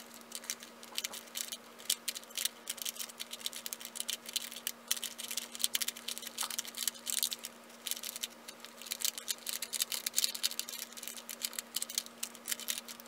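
Plastic Guanlong Square-1 puzzle being turned fast in the hands during a solve: a rapid, irregular run of clicks and clacks as its layers slice and twist.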